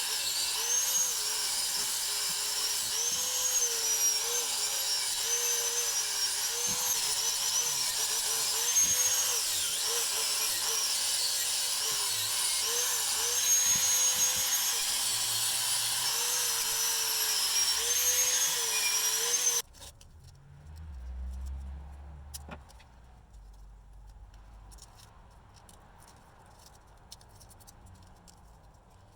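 A small high-speed power-tool motor, drill-like, runs with a high whine whose pitch dips again and again as it is pressed into the work. It cuts off suddenly about two-thirds of the way through, leaving quiet handling with a few faint knocks.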